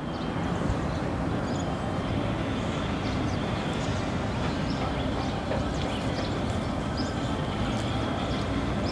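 Steady low rumble of outdoor background noise, with faint, short, high bird chirps now and then.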